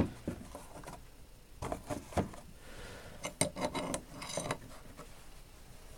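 Metal micrometers clinking and tapping as they are handled and set down in a tool box drawer: a few scattered sharp knocks, then a quick cluster of clinks a little past halfway.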